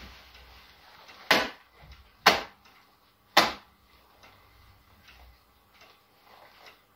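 Three sharp leather slaps about a second apart, a pair of leather gloves struck against a gloved palm.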